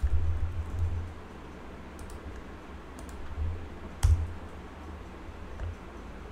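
A few sharp computer keyboard and mouse clicks, spaced about a second apart, with dull low thumps on the desk. The loudest click comes about four seconds in, as the pasted install command is run in the terminal.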